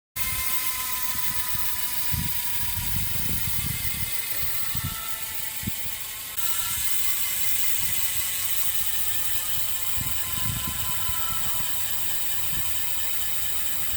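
Bicycle rear freehub freewheeling as the wheel coasts: the pawls make a fast, steady ratcheting buzz whose pitch sinks slowly.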